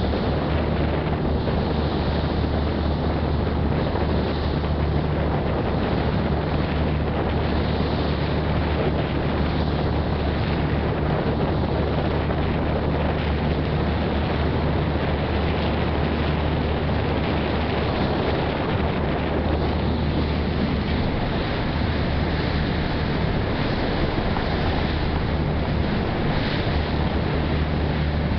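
Passenger ferry under way: a steady low engine drone, with water rushing past the hull and wind buffeting the microphone.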